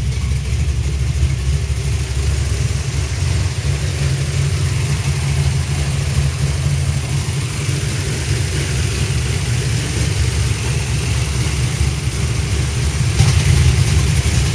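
Old car engine idling steadily with a low, even note, growing louder briefly near the end; it is running again on a replaced carburetor after sitting.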